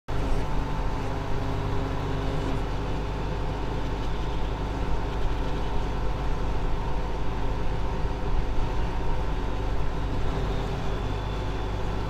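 Case IH Axial-Flow 7088 combine harvester's diesel engine running steadily.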